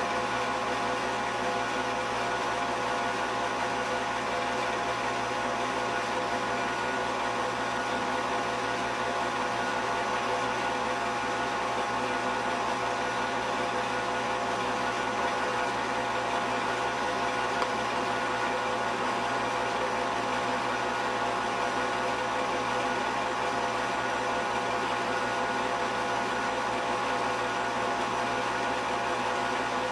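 A film projector running: a steady mechanical whir and hum that does not change.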